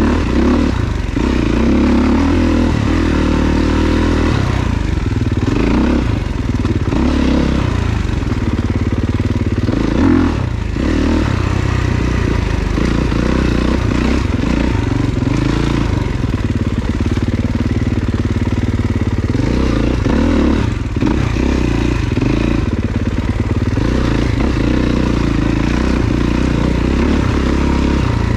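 Dirt bike engine running under the rider, the revs rising and falling with the throttle through the trail, with some rattling and clatter from the bike.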